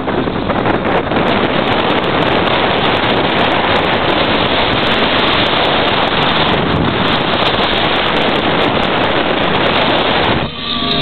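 Steady wind rushing over the microphone of a camera filming from a moving car, with road and engine noise underneath. Near the end it cuts off and guitar music begins.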